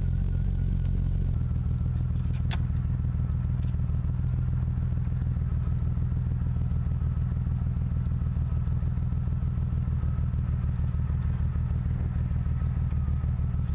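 BMW E36 M3's straight-six engine idling steadily, with a faint steady high whine over the low rumble. A few light clicks come in the first few seconds.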